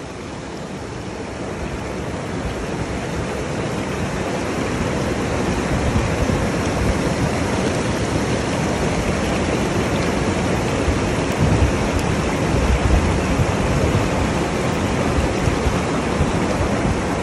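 Mountain stream of meltwater rushing and splashing over boulders, a steady rush of water that grows louder over the first few seconds.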